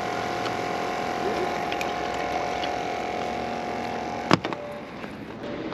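Small battery-powered aerator air pump on a live-bait container, buzzing steadily at one pitch. A sharp click comes about four seconds in, after which the buzz is quieter.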